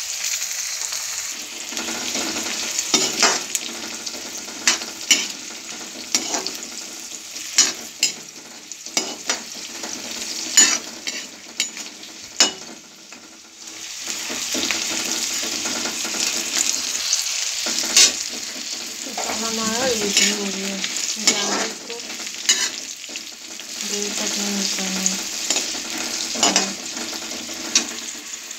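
Garlic cloves, dried red chillies and cumin, fennel and coriander seeds sizzling steadily in hot mustard oil in a steel kadhai, tempering before they go into the vinegar. A steel ladle stirs them, clicking and scraping against the pan many times.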